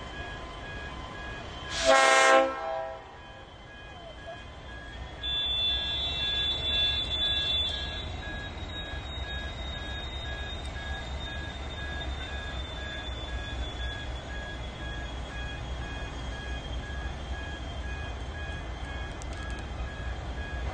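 Pacific National AN-class diesel locomotive running light with two NR-class locomotives, giving one short horn toot about two seconds in, the loudest sound. A few seconds later a high squeal of steel wheels on the curved track starts and thins into a faint falling whine, over the low rumble of the idling diesels.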